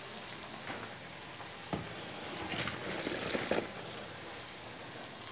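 Hot cooking water poured off a steel pot of boiled lasagne sheets into a stainless-steel sink, splashing loudest for about a second in the middle, with a single knock just before. Underneath, a steady sizzle from vegetables frying in a pan.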